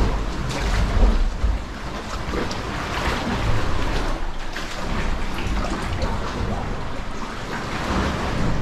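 Sea water sloshing and lapping around kayaks, with the splashes of kayak paddle strokes. Wind buffets the microphone with a low rumble, strongest about a second in.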